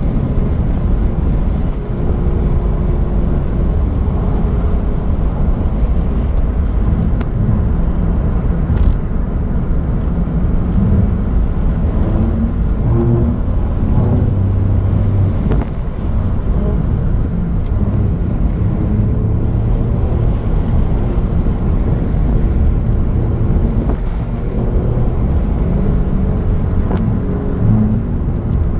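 Alfa Romeo Giulia Quadrifoglio's twin-turbo V6 engine running under way, heard from inside the cabin over a steady low road and tyre rumble. The engine note rises and falls several times as the car drives on.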